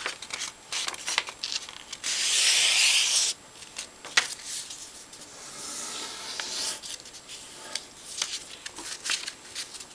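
A sheet of paper being handled and folded on a table, rustling and rubbing. A louder swish of paper sliding lasts just over a second, starting about two seconds in, with small crinkles and taps scattered through.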